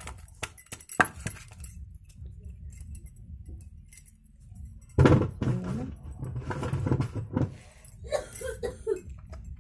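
Pounding stick clinking and knocking against a steel bowl as the chutney is crushed, a few sharp strikes in the first second or so. About five seconds in, a louder pitched sound of unclear source comes in and lasts a couple of seconds.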